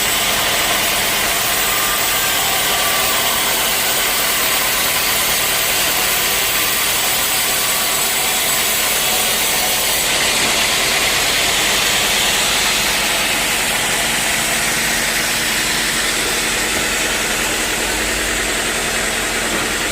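Sawmill machinery running steadily, an even mechanical noise whose higher part changes about halfway through.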